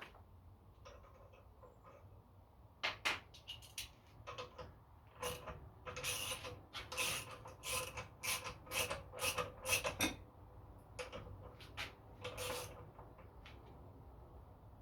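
Hand tools working the crankshaft thread of a Honda GX270 engine: an irregular run of metal scrapes and clicks, most of them between about three and twelve seconds in.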